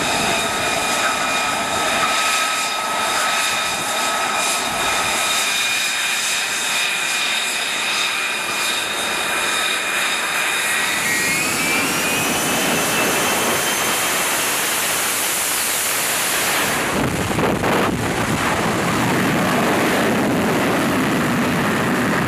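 An F-35B's jet engine whines steadily at low power on deck, with several high tones. About halfway through it spools up, the whine gliding upward as the lift-fan door opens, and from about three-quarters of the way in it becomes a deep roar of takeoff thrust as the jet lifts off.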